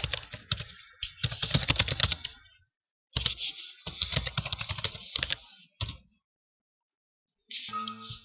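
Computer keyboard typing: two runs of rapid key clicks with a short pause between them, then a single keystroke.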